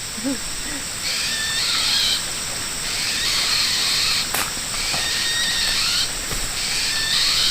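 Animal calls repeating roughly once a second, each lasting most of a second, over a steady high hiss.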